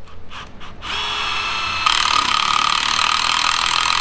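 Cordless drill boring a hole through a metal bracket plate clamped in a vise. A few short clicks come first; the drill starts about a second in and runs steadily, louder as it bites from about two seconds in.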